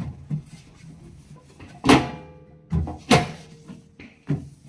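Metal kitchen things knocked and set down on a counter while cleaning: about five clanks, the loudest about two seconds in and another just after three seconds, each ringing briefly.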